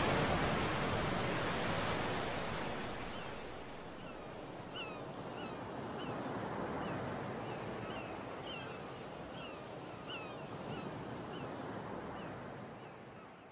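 Water washing and lapping as a steady hiss that fades out toward the end. From about four seconds in, short high chirps repeat about once or twice a second over it.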